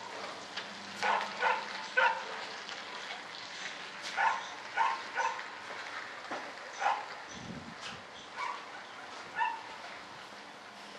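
A dog barking repeatedly, short barks coming in irregular runs of two or three.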